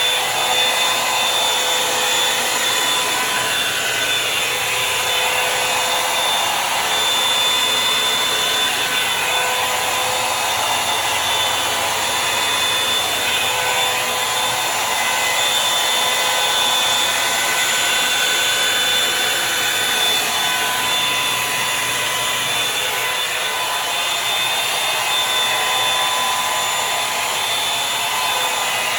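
Revlon One Step Volumizer hot-air brush dryer running steadily: a constant rush of air with a faint motor whine that swells and fades slightly.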